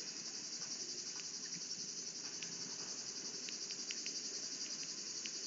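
A steady, high-pitched chorus of insects chirping, with a few faint ticks.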